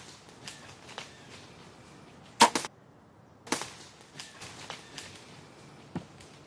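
Bow shot at a deer: a sharp crack of the string and arrow about two and a half seconds in, followed by a scatter of crackling and rustling in dry leaves as the deer runs off, with a last single knock near the end.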